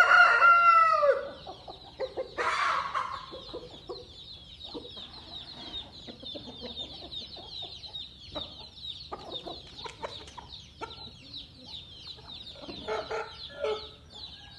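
Game-fowl rooster crowing, the crow ending with a falling note about a second in. A short harsher call follows, then scattered soft clucks, over a steady high-pitched chirping in the background.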